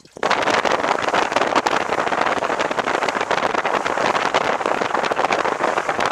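Loud, steady rushing noise of a small motorboat running at speed: wind buffeting the microphone over the hiss of water along the hull, with no distinct engine note.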